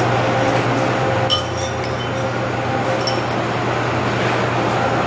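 Metal chopsticks clinking against a small ceramic bowl: a quick run of light ringing taps about a second and a half in and another tap around three seconds, over a steady background hum.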